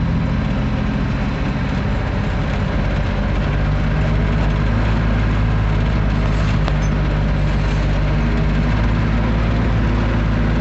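Loaded grain truck's diesel engine running at a steady speed as it rolls down a rough dirt road, heard from the cab, with constant rattling and road noise.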